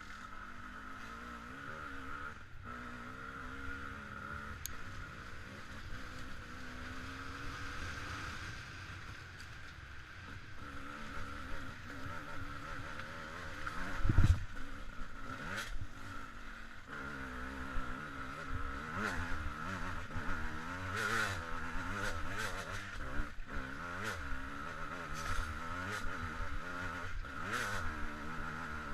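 Off-road motorcycle engine running as the bike is ridden, its revs rising and falling. There is a heavy thump about halfway through.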